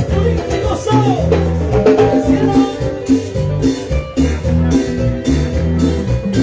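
Live cumbia band playing: electric guitar, keyboards, drum kit and percussion over a repeating bass line with a steady dance beat.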